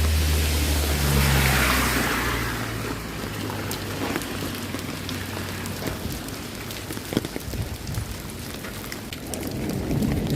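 Rain falling steadily, with scattered drop ticks. In the first couple of seconds a vehicle passes on the wet road, a low engine hum and a swelling hiss of tyres on water that fades out.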